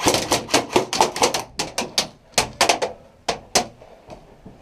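Airsoft guns firing in a firefight: a fast, irregular run of about fifteen sharp cracks that stops about a second before the end.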